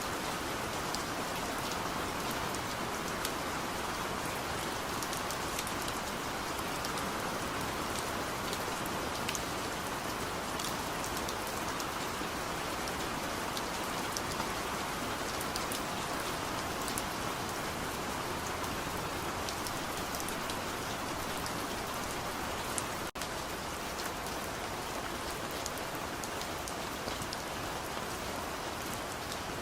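Steady rain falling, an even hiss with many small drop ticks scattered through it; the sound cuts out for an instant about two-thirds of the way through.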